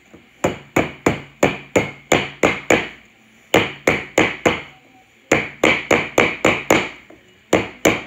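Rubber mallet striking an electric scooter's tire as it is driven down over the hub-motor rim. The blows come about three a second, in bursts of four to eight with short pauses between.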